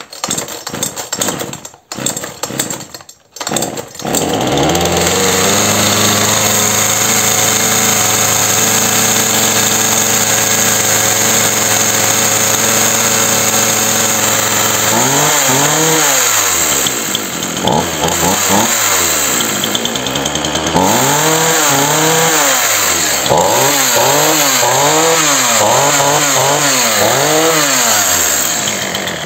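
Gasoline two-stroke chainsaw pull-started: a few quick pulls on the starter cord, and the engine catches about four seconds in and idles steadily. From about halfway on, the throttle is blipped again and again, the engine revving up and dropping back to idle each time: the saw runs.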